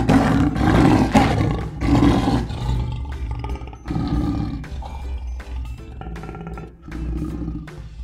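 A big cat roaring and growling, loudest in the first two and a half seconds, with further growls about four and seven seconds in, over background music.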